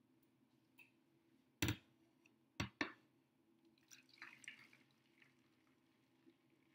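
Three sharp knocks as the saucepan is handled, the last two close together, then a faint trickle and drip of hot water poured from the saucepan into a metal baking pan, filling a water bath around ramekins.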